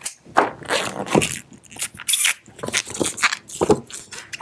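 Latex twisting balloon (260) being handled: irregular rubbing and squeaking as it comes off the hand pump and is knotted at the nozzle.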